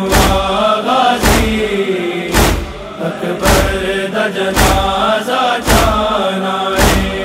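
Male chorus chanting a wordless noha lament melody over a steady heavy beat, one thump about every second.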